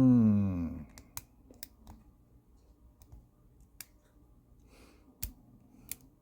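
A man's drawn-out groan, falling in pitch, in the first second, then scattered small metallic clicks as a hook pick and tension wrench work the pins of a padlock, with a few seconds between some clicks.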